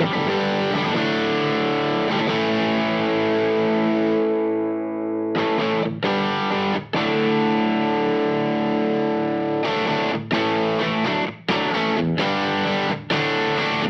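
Overdriven electric guitar, a Fano Omnis MG6 played through an LPD Pedals Sixty8 Marshall-style drive pedal set with every knob at noon, into a Marshall Origin 50 head. A chord is left ringing for about five seconds, then comes a run of strummed chords cut off by short muted stops.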